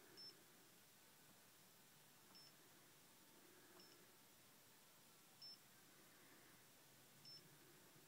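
Alpine touch-screen head unit giving short, high confirmation beeps as its on-screen buttons are pressed: five single beeps, one to two seconds apart, over faint hiss.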